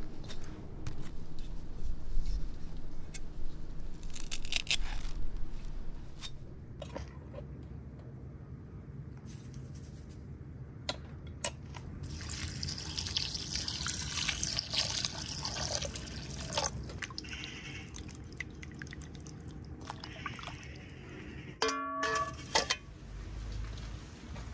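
A knife cutting through fresh herb stems in a series of sharp cuts, then water poured from above into a plastic bowl of chopped herbs, splashing for several seconds. A short ringing sound near the end.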